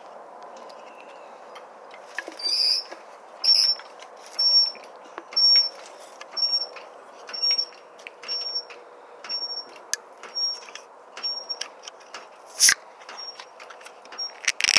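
Floor jack being pumped with its long handle, squeaking once on each stroke, about one squeak a second, with one sharp click near the end.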